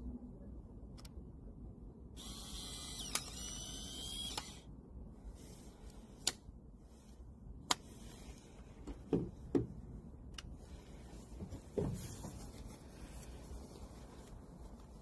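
Polaroid instant camera taking a picture: its motor whirs for about two seconds as it ejects the print, with a sharp click partway through. After it come a few scattered clicks and soft thumps of the camera being handled.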